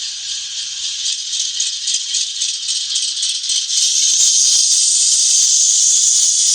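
Onboard sound decoder of an N scale AC44C6M locomotive model playing diesel sound effects through its tiny speaker: a hissing, rattling noise with almost no low end, turning steadier and louder about four seconds in.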